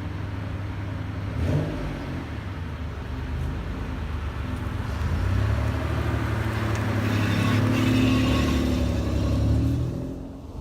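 1993 Mitsubishi 3000GT SL's V6 engine and exhaust, the car being driven, its downpipe leak patched with exhaust tape. The engine note builds under throttle from about halfway in and drops off just before the end.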